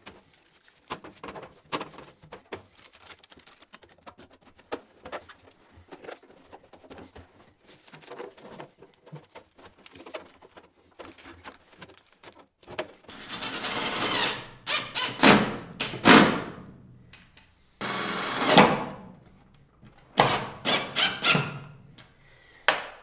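Aluminium foil tape rustling and being pressed onto the seams of a galvanized steel duct tee. About halfway through come several loud ripping runs as strips are pulled off the roll.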